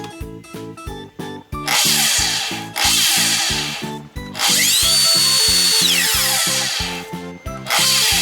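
Hitachi C7FSH2 slide miter saw's motor run in four short bursts over background music, one spinning up to a steady high whine and winding back down. The saw's bearings are worn, which the owner says has made it increasingly noisy.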